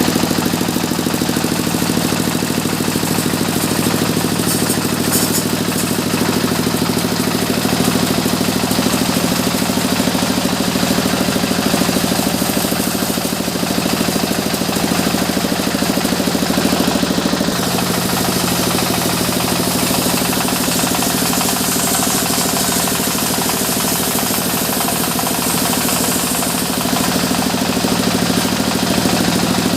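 Engine-driven sawmill machinery running steadily, its low hum changing pitch about seventeen seconds in.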